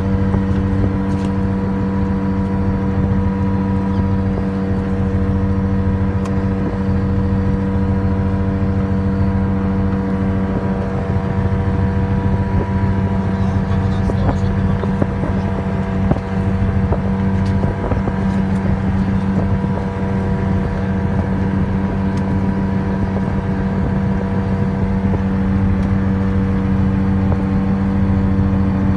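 Engine on the fishing boat running steadily at constant speed, a low even hum that does not change pitch, with a few faint clicks from the net and its floats being handled.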